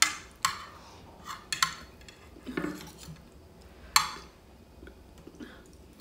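Metal fork and spoon clinking and scraping against a ceramic plate, a string of short sharp strikes with the loudest about four seconds in.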